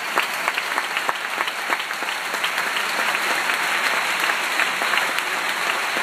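Theatre audience applauding steadily, a dense patter of many hands with a few sharper single claps standing out.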